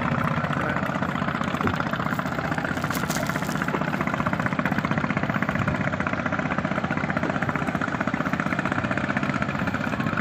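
Boat engine running steadily close by, with a fast, even pulsing beat.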